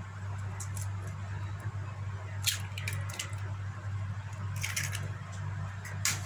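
Eggs being cracked and broken open over a mixing bowl: a few short sharp shell cracks and taps about two and a half seconds in, again a little before five seconds, and near the end, over a steady low hum.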